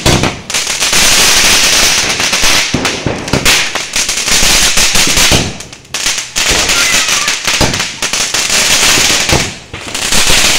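Fireworks spraying sparks: a loud continuous hiss full of crackles, dropping off briefly twice, about five and a half and nine and a half seconds in.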